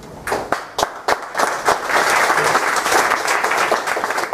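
Audience applauding: a few scattered claps that build within about two seconds into dense, steady applause.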